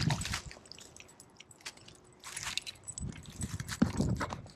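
Handling noise as a small brown trout is landed into a mesh landing net: rustling, knocks and rattling clatter in uneven bursts, with the trout flopping in the net near the end.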